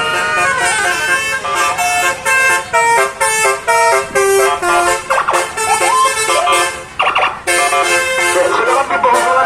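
Basuri musical air horns on a vehicle playing a quick melody of short stepped notes, with a brief break about seven seconds in.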